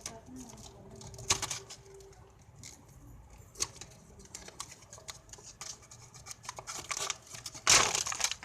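Handling noise from unboxing a hot glue gun: scattered clicks and rustles of plastic and packaging, with a louder rustling scrape near the end.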